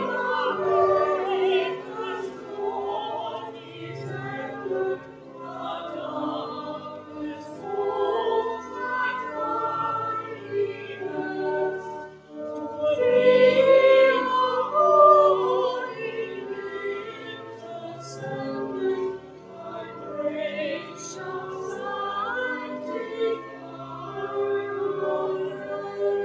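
Church choir of men and women singing, swelling louder about halfway through.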